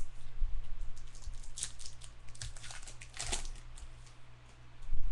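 Trading cards being flipped through by hand: a few short swishes and clicks as one card slides off another, over a steady low hum.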